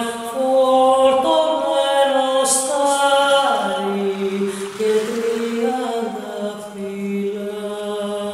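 Music: a voice singing a slow melody in long held notes.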